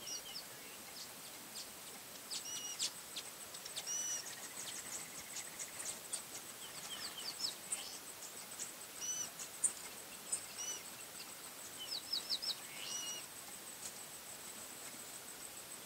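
Bush ambience: wild birds giving short chirps and whistles in scattered clusters over a steady, high-pitched insect whine.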